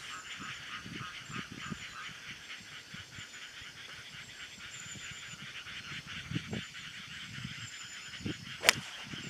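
A golf club striking the ball off the tee near the end: one sharp, crisp crack, the loudest sound here. Under it runs a steady, pulsing chirring chorus of calling animals.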